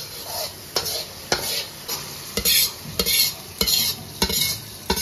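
Metal ladle scraping and knocking against a stainless steel wok about twice a second, scooping out freshly fried soybean paste.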